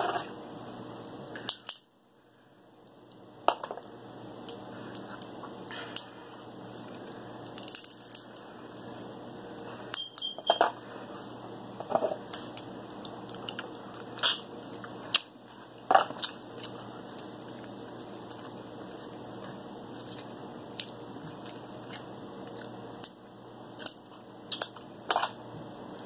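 King crab leg shells cracking and being picked apart by hand, with close-up eating sounds: scattered sharp clicks and snaps every second or two over a steady low hum.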